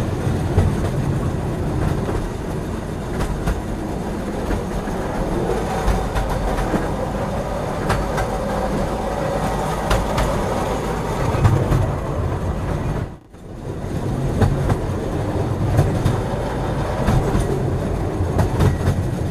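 Train running along the track: a steady rumble with the clickety-clack of wheels over the rail joints. The sound drops out for a moment about thirteen seconds in, then picks up again.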